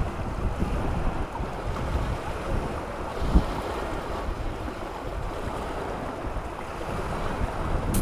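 Small sea waves washing over rocks and pebbles, with wind buffeting the GoPro HERO3+ Black Edition's built-in microphone as a steady low rumble. A single thump about three and a half seconds in.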